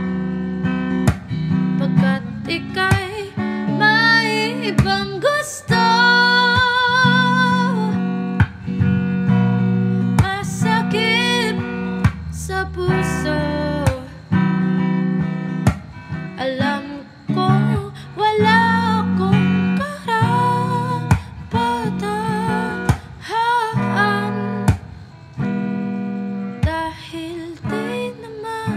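A slow song on acoustic guitar, strummed and picked, with a woman's voice singing a held, wavering melody over it in places.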